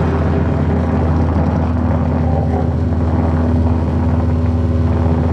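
Live band playing loud, distorted droning music, with low notes held steadily and a higher held note coming in about a second in.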